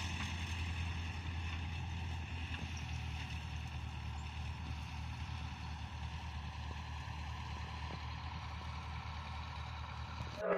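Diesel engine of farm machinery running steadily, a constant low hum.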